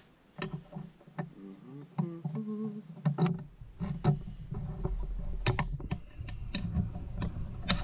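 Small metal hand tools, a pick and snap-ring pliers, clicking, knocking and scraping against the transmission case while working the snap ring out of the fifth-gear detent bore. A scattered series of sharp clicks and taps with short scrapes between them.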